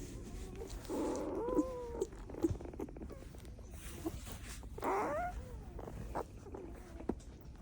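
Six-day-old Belgian Malinois puppy making thin squeaks and whimpers, one about a second in and a rising-then-falling one near five seconds, over small snuffles and a steady low rumble.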